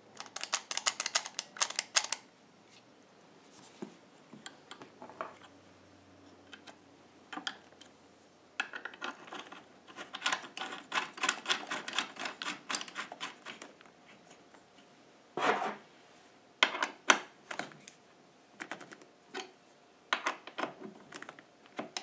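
Clicking and rattling of a leather-wrapped seat-belt buckle and its metal anchor being handled and fitted to a car seat, in several bursts of quick clicks with short gaps between. One louder knock comes about fifteen seconds in.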